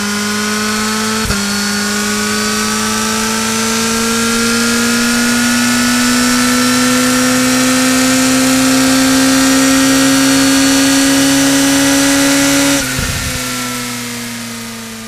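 Suzuki sport motorcycle engine under hard acceleration: an upshift about a second in drops the pitch briefly, then the note climbs steadily in top gear for about eleven seconds. Near the end the throttle closes and the engine note falls away, quieter and lower.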